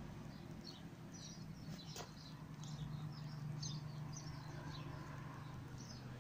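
Small garden birds chirping: many short, high, falling chirps at irregular intervals, over a steady low hum. A single sharp click about two seconds in.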